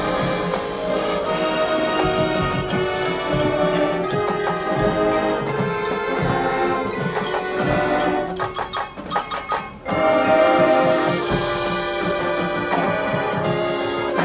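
Marching band playing, with sustained brass chords over percussion. About eight seconds in, the winds drop out for a brief run of sharp percussion strokes, and the full band comes back in loudly about two seconds later.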